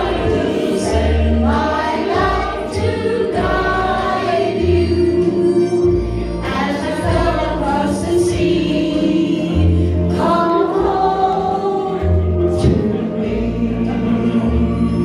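A group of women singing together in unison over an instrumental backing track with a bass line that changes note about once a second.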